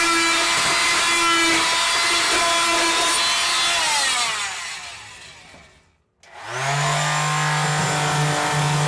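Power tool cutting back excess cured fibreglass. Its motor runs steadily, winds down and stops about five to six seconds in, then spins back up and runs again.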